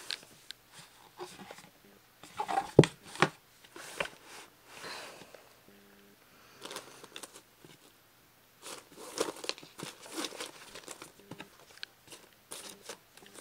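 Packaging being unpacked by hand: intermittent rustling and crinkling of paper with scattered taps and knocks, the sharpest knock about three seconds in.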